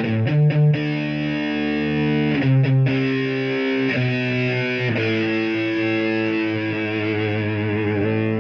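Background music on distorted electric guitar: a few short chord stabs, then long held chords that waver near the end.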